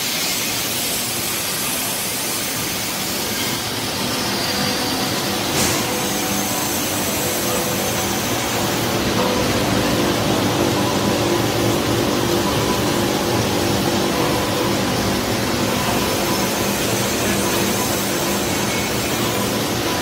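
Industrial food-processing machinery running under test: chocolate coating pans, melting tanks and a chiller giving a steady whir with a low hum. There is a single sharp click about five and a half seconds in, and the hum grows a little louder partway through.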